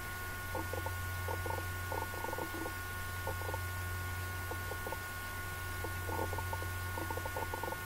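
Room tone: a steady low hum, with faint irregular ticking over it.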